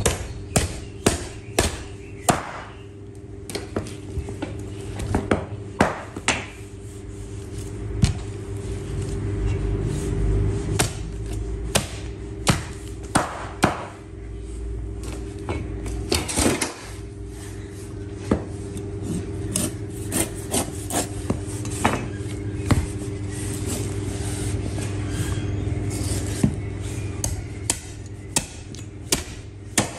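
Butcher's knife cutting through a lamb carcass on a wooden chopping block: sharp, irregular knocks as the blade strikes bone and board, with scraping between them. A steady low hum runs underneath.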